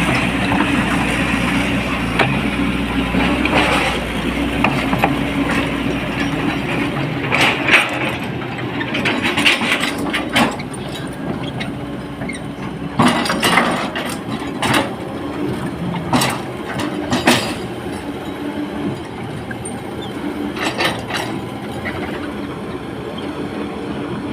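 Excavator's diesel engine running steadily, with a series of sharp knocks and clatters from about a third of the way in as the machine works.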